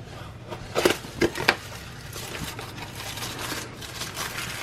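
Packaged doll accessories being handled: a few sharp knocks and clicks about a second in, then steady rustling of packaging.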